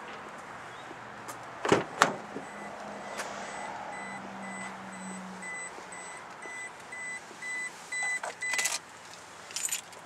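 A car door clicks open twice. Then the Toyota Hilux's warning chime beeps evenly, a couple of times a second, for about six seconds, the alert for the door being open with the key left in the ignition. A few thumps from handling come near the end.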